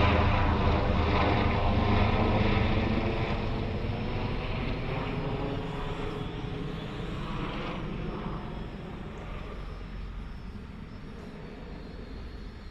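Helicopter flying high overhead with a steady droning hum that fades gradually as it moves away.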